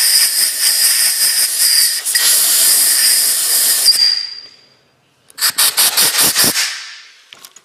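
Compressed-air blow gun blasting into the air-inlet filter of an air impact wrench to clear out crud. A long loud hiss ends about four seconds in with a brief thin whistle as it tails off, then after a short pause a second, choppier blast of about two seconds.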